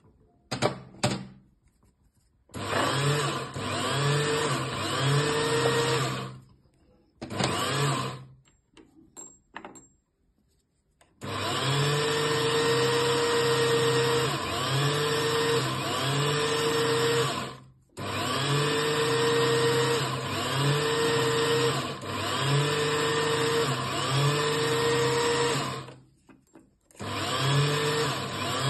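Small bench lathe running while a hand-held tool works a bakelite prayer bead, its whine swelling and dipping about every second and a half. The lathe is switched off and restarted several times, with a gap of about three seconds a third of the way in.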